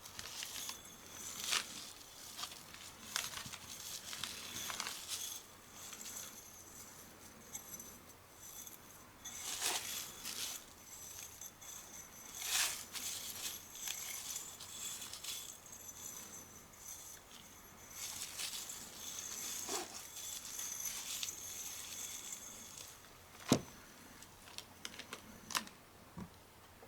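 Irregular handling sounds of metal parts and packing material: light metallic clinks and jangles, scratching and crinkling, with one sharp, louder click about 23 seconds in.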